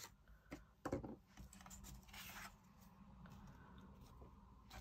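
Faint handling of card and vellum sheets on a craft table: a soft knock about a second in, then a brief sliding scrape of paper, with a few light clicks.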